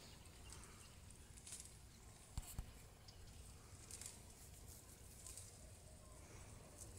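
Faint rustling of shrub leaves and twigs as a camel browses, pulling at the branches, with two quick sharp clicks about two and a half seconds in.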